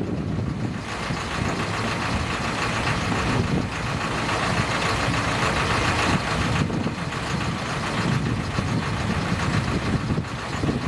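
Side-loader garbage truck's engine running while its hydraulic lift-and-tip arm raises and empties a wheelie bin into the body, with a steady hiss from the mechanism that cuts off about two-thirds of the way through.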